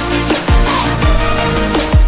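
Electronic dance music with a heavy bass drum hitting about every 0.7 seconds.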